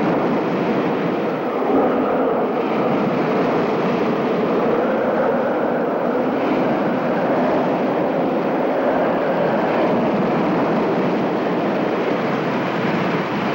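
Hurricane-force wind roaring: a loud, steady rushing noise that swells slightly now and then.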